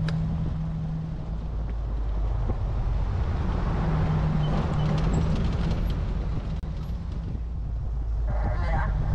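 Jeep engine running and tyres rolling on a dirt and gravel forest road while driving, a steady low hum under road noise. A short pitched sound comes near the end.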